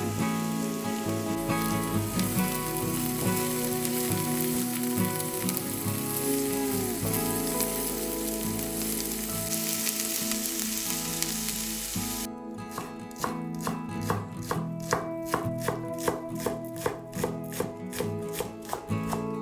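Food sizzling as it fries in a pan, a steady hiss, under background music; about twelve seconds in it cuts to a knife chopping on a board, sharp strokes roughly three a second, with the music continuing.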